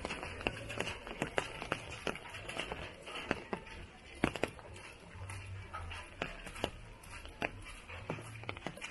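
Rain falling, with irregular sharp drops tapping over a steady wash of rain.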